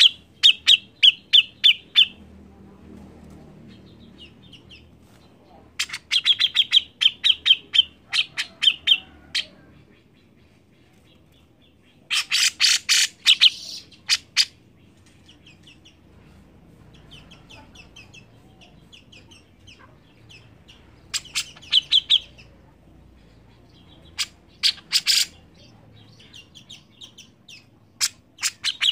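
Caged cucak jenggot (grey-cheeked bulbul) calling in loud bouts of rapid, sharp repeated notes every few seconds, with softer chattering between the bouts.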